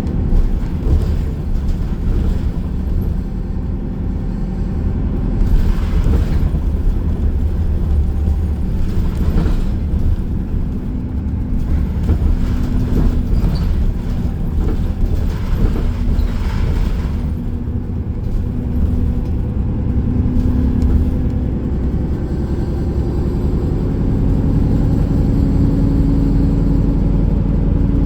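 Cabin noise inside a moving city bus: a continuous low drivetrain and road rumble, with a steady hum from the drive that comes and goes and rises in pitch near the end, and scattered light rattles.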